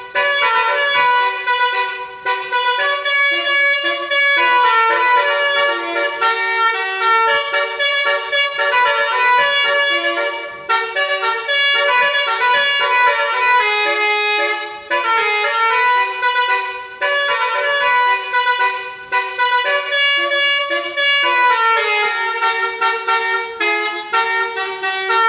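Bus 'basuri' melody horn playing a tune: a quick run of changing piped notes in phrases, with brief breaks between them.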